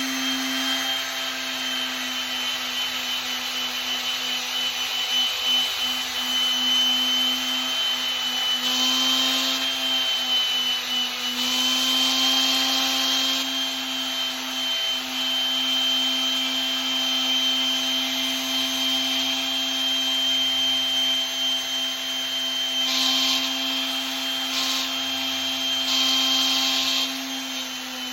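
Electric sander running steadily with a low hum and a high whine, its 1500-grit paper rubbing on the brass putter head. A brief extra hiss comes several times, near the middle and again near the end, as the paper bears harder on the metal.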